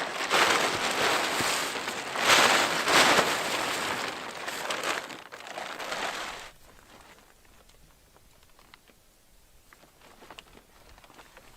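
Tarp rustling and crinkling as it is handled, stopping about six and a half seconds in, followed by a few faint ticks.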